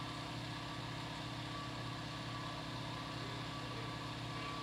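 Steady mechanical hum of a running machine, several constant tones over a fast low pulsing, unchanging throughout.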